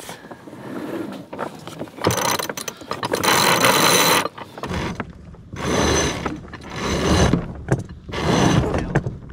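A Lewmar 46 self-tailing sheet winch ratchets on its pawls as the sheet is brought in after a tack. It goes in several spells: a long one starting about two seconds in, then shorter bursts.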